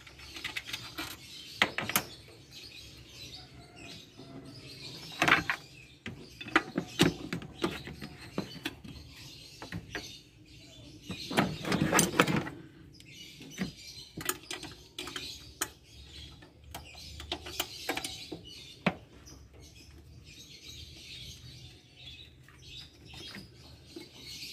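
Irregular metal clicks and knocks from a hand wrench working loose the 10 mm bolts that hold a throttle body, with a few louder knocks.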